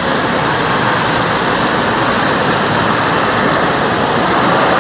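A loud, steady rushing noise.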